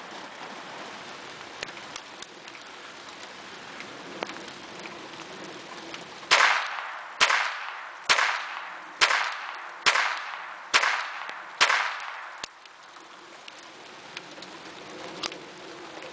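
Seven shots from a Beretta 950B .22 Short semi-automatic pocket pistol, fired at an even pace of about one a second starting some six seconds in. Each is a sharp crack with a short ring-out, over a steady background hiss.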